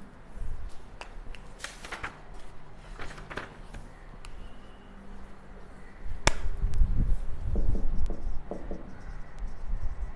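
Scattered clicks and rustling from a person moving about, with one sharp click about six seconds in followed by louder low rumbling noise.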